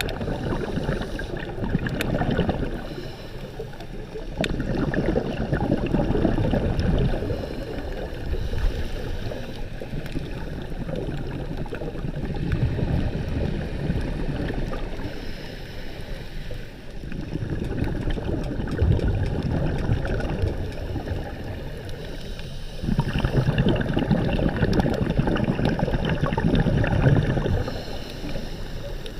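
Water churning and gurgling in a low, rough rush that swells and fades every few seconds.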